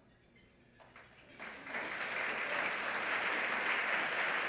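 Audience applause, starting about a second and a half in and quickly building to a steady, dense clapping that holds.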